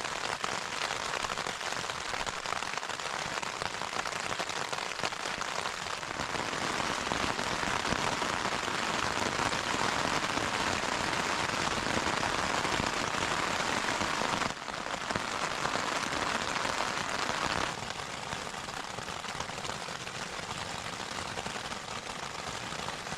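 Heavy rain falling on the flysheet of an MSR Hubba NX tent, a dense steady patter. It grows heavier a few seconds in and eases somewhat about three-quarters of the way through.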